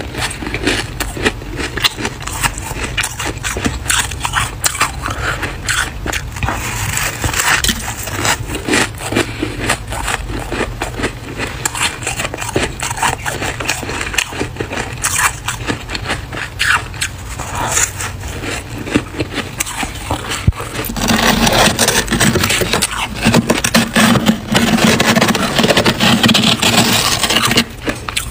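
Metal spoon scraping and scooping fluffy freezer frost, a crisp crackling scrape of many small clicks that grows louder for several seconds near the end.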